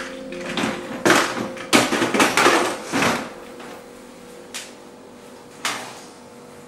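Plastic storage drawers being pulled open and pushed shut, a dense clatter of knocks lasting a couple of seconds, followed by two single knocks.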